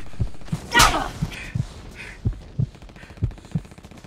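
Heartbeat sound effect: low thuds in lub-dub pairs, about one pair a second. One short, loud cry falls in pitch about a second in.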